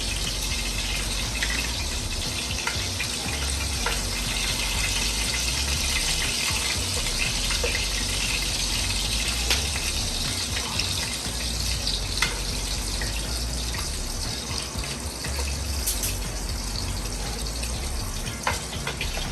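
Meatballs frying in hot oil in a pan: a steady sizzle with scattered pops and crackles. Their doneness is judged by this sizzle settling as the oil goes quieter.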